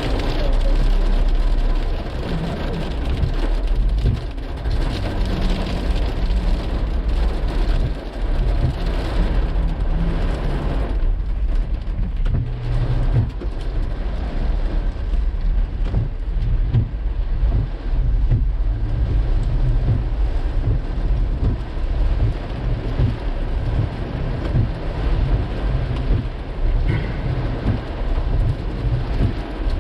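Pea-sized hail pelting down, a dense clatter of small hard impacts over a heavy low rumble. The higher clatter thins about eleven seconds in.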